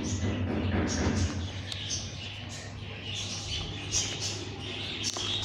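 Short high-pitched animal chirps, several a second, over a low steady hum.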